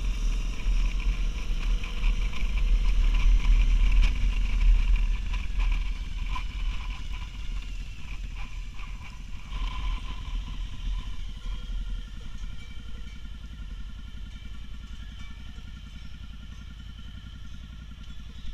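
Motorcycle running at road speed with wind rushing over the helmet-mounted camera, loudest about four seconds in. It grows quieter from about twelve seconds in as the bike slows.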